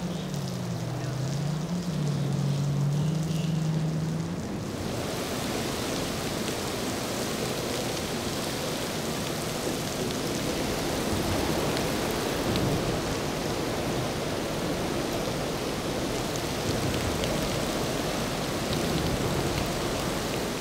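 A Grady-White boat's triple outboard engines drone low, wavering in pitch, for the first four seconds or so. Then the sound changes abruptly to heavy rain, a steady hiss of a downpour on pavement and water.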